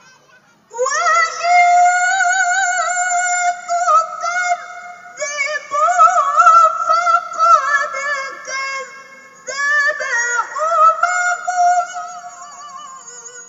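A woman reciting the Qur'an in the melodic tilawah style, a high voice holding long notes with wavering, trilled ornaments. She comes in about a second in and pauses briefly twice between phrases.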